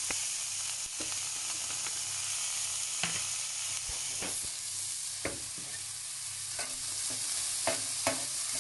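Diced speck, onion and garlic sizzling in a stainless steel skillet with no oil, while a metal spoon stirs them, scraping and clicking against the pan at irregular intervals about once a second.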